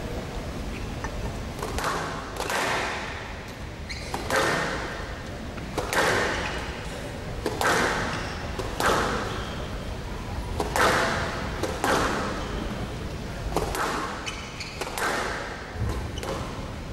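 Squash rally: the ball is struck by rackets and hits the court walls in a series of sharp cracks, about one every second and a half, each followed by a short echo.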